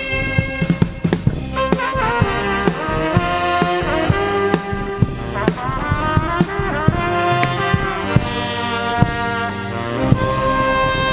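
Live band playing: a brass or saxophone-like melody of held notes that bend and waver, over a steady drum beat.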